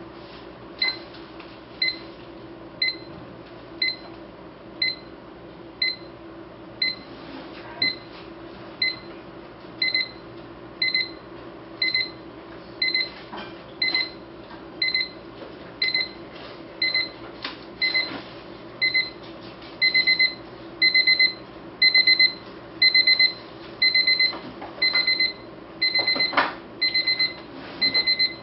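Rhythm electronic alarm clock's alarm going off: short, high electronic beeps about once a second. The beeps grow longer and louder, becoming long multi-pulse beeps in the last third.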